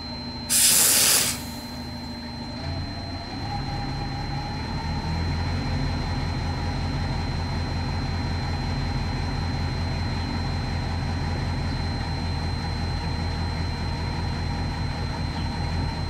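A short hiss of freeze spray about half a second in. From about three seconds in, the Mazda B2600 pickup's four-cylinder engine runs rough and louder, missing: chilling the engine computer board has set off its thermal fault and the engine has lost fuel control.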